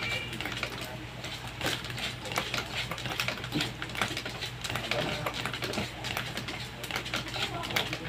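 Mini pedal exerciser being pedalled, giving a rapid, irregular clicking and rattling as it turns, over a low steady hum.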